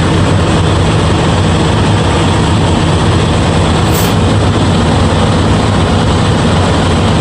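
Diesel semi-truck engine running steadily at a raised idle, a constant low rumble, idled up to charge the reefer unit's flat battery through jumper cables. A short high hiss sounds about four seconds in.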